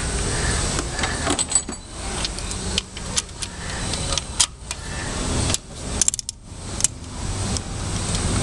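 Metal hand wrench clinking and clicking against a 10 mm bolt and the engine's metal parts as the bolt is worked loose; irregular sharp metallic clicks, bunched together about six seconds in.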